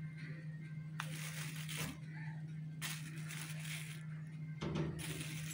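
Cocoa powder being sifted through a small metal mesh strainer: scratchy rustling in three short spells as the strainer is shaken, over a steady low hum.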